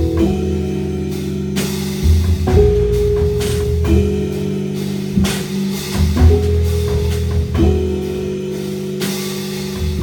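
Live jazz trio playing: held Fender Rhodes electric piano chords that change every second or two over a bass line, with drum kit cymbal crashes and drum hits.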